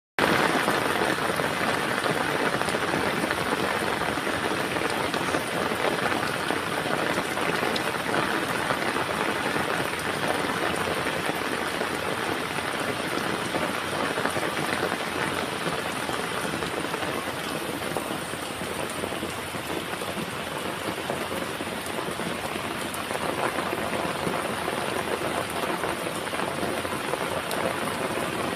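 Heavy rain falling steadily, a dense, even hiss and patter of raindrops.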